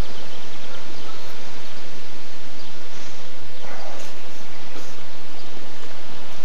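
Steady, loud rushing of wind with leaves rustling.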